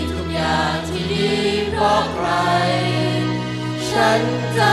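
Mixed choir of teenage students singing in harmony over an instrumental accompaniment that holds low bass notes. The bass moves to a higher note about two seconds in.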